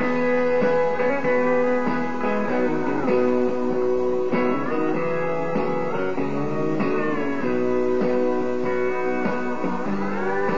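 Instrumental break in a country song: guitars playing steadily with sustained, bending notes, no singing.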